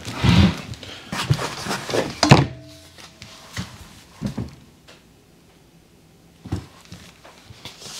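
Thumps and knocks of a person sitting down at a table and lifting a large pizza on its tray. The loudest knocks come in the first two and a half seconds, with a few fainter ones later.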